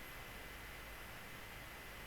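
Faint steady background hiss with a thin, steady high tone underneath; no distinct event.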